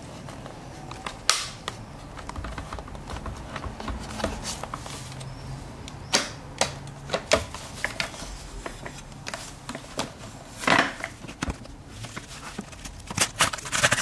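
Irregular clicks and knocks of hard plastic parts being handled on the Xiaomi G11 vacuum's motorised brush head, with a cluster of quick clicks near the end.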